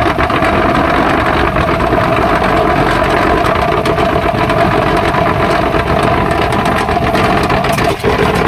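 Vibrated concrete block-molding machine running: a loud, steady engine-and-vibrator drone with a constant mid-pitched hum, dipping briefly near the end.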